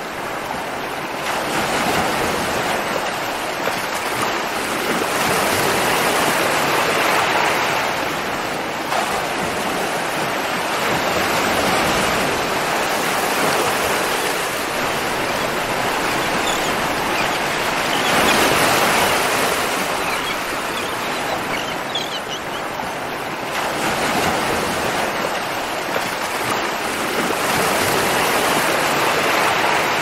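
Ocean surf: waves breaking and washing in, a continuous rush of water that swells and eases every few seconds.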